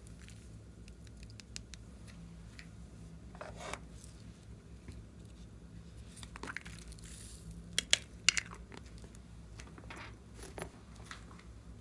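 Slime being squished and stretched by hand, with soft crackles and sticky tearing noises, and a couple of sharp pops about eight seconds in.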